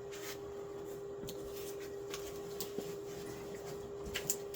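Faint handling noises, a few light rustles and clicks, over a steady electrical hum.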